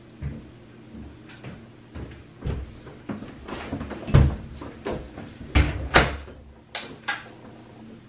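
Irregular knocks and clatter of things being handled and set down, about a dozen bumps with the three loudest in the second half.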